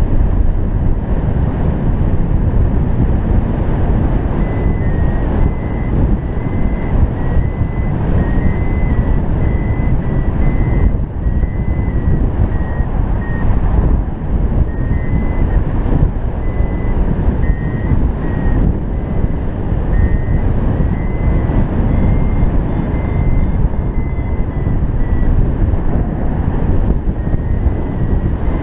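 Arduvario ESP32 variometer sounding its lift signal: a string of short high beeps whose pitch shifts slightly up and down, meaning the paraglider is climbing faster than the +0.15 m/s beep threshold. Heavy wind rumble on the microphone from the airflow in flight is the loudest sound under the beeps.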